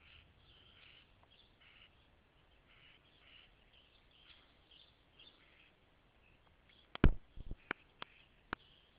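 Small birds chirping faintly in the background. About seven seconds in comes a quick cluster of sharp knocks and clicks, the first the loudest: handling knocks on the microphone as the camera is moved.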